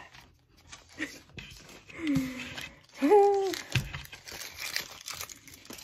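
A woman's voice making two short wordless sounds, the louder held briefly about three seconds in, with light crinkling and rustling of paper being handled.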